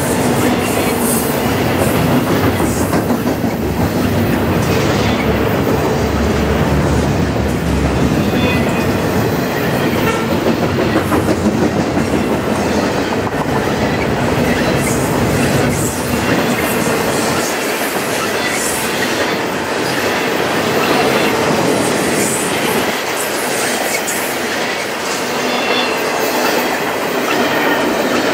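Double-stack intermodal container well cars of a freight train rolling past close by: steady wheel-on-rail noise with repeated clicks from the wheels. The low rumble thins out about two-thirds of the way through.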